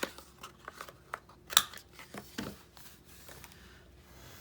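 Paper-crafting handling noise: a run of short sharp clicks and paper rustles, the loudest about one and a half seconds in, then a quieter stretch.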